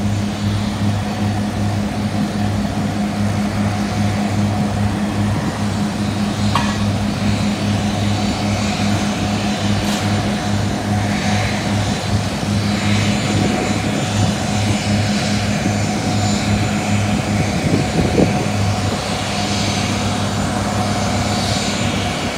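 Airport apron noise while a twin-engine jet airliner taxis: a steady low engine hum that pulses rhythmically under a constant rush of noise.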